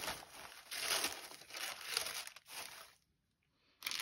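Shredded paper filler and tissue paper rustling and crinkling as a hand lifts and drops them in a cardboard box, in bursts over the first three seconds, then one short rustle near the end.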